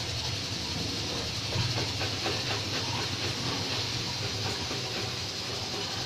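Fresh ginger being grated on a stainless-steel box grater: a steady, continuous rasping scrape of stroke after stroke, with a low hum underneath.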